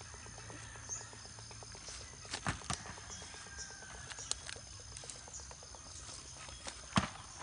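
Whole coconuts knocking against one another as they are handled and tossed onto a pile. There are a few sharp knocks about two and a half seconds in and the loudest single knock near the end. A steady high insect trill runs underneath.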